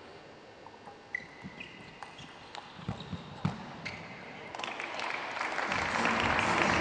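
Table tennis ball clicking off bats and table in a fast rally, a string of sharp ticks with a short ring after several of them. From about four and a half seconds in, a rising wash of applause takes over.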